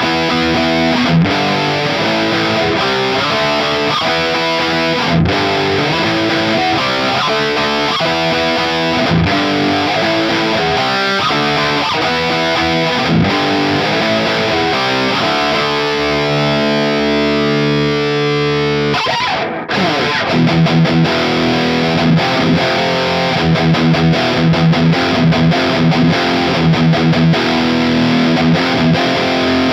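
Electric guitar played through heavy distortion, with held notes and chords changing through the first part. A brief break comes about 19 seconds in, then a new passage of evenly repeated chugging chords.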